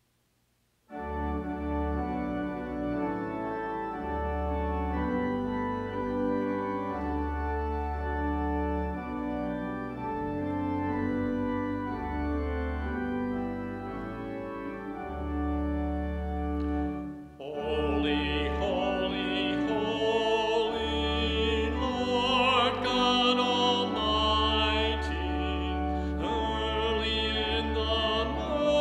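Church organ begins playing held chords with low pedal notes about a second in. About 17 seconds in it pauses briefly, then carries on under a solo voice singing with a strong vibrato.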